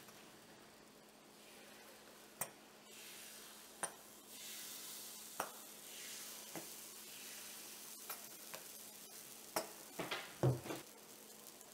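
Pulppang batter sizzling faintly as it fills the hot wells of a cast-iron pan, with a few light sharp taps and a louder clatter of knocks near the end.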